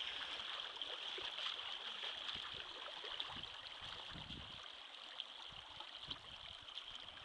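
Shallow river current running past, a steady rushing hiss of moving water that grows slightly quieter in the second half.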